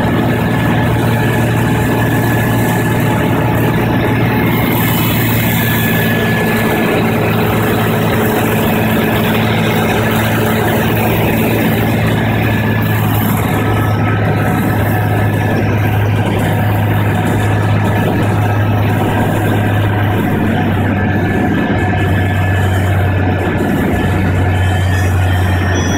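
Cessna 185 floatplane's piston engine and propeller droning steadily, heard inside the cockpit on approach to a water landing. The drone drops slightly in pitch near the end.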